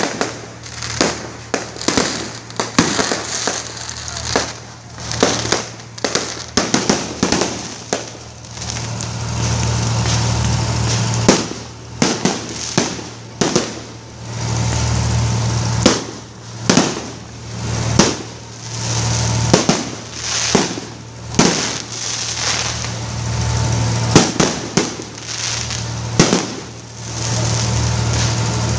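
Aerial fireworks going off: many sharp bangs and crackling bursts at irregular intervals, sometimes several a second. Between them, stretches of steady loud noise come and go several times.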